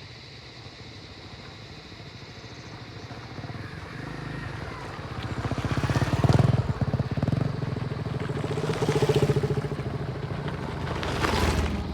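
Motorcycle engine running and being revved, its firing pulses growing louder through the first half, with throttle surges about halfway through and again a few seconds later.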